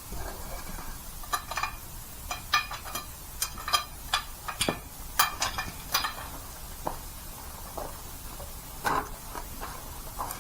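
Metal clanks and rattles of a long jack being pulled out from under a car: a dozen or so short, sharp knocks, most of them in the first six seconds, then a few scattered ones.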